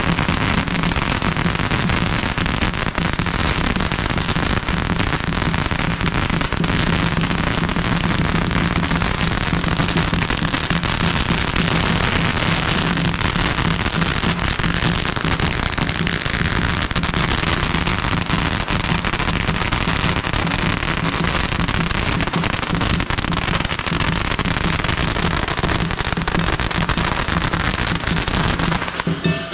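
Long strings of Tết firecrackers going off in a dense, unbroken crackle, cutting off suddenly near the end.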